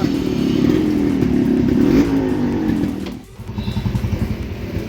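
Yamaha RX 100's two-stroke single-cylinder engine running as the motorcycle is ridden; its pitch slides down about two seconds in, it drops away sharply a little after three seconds, then picks up again lower and pulsing.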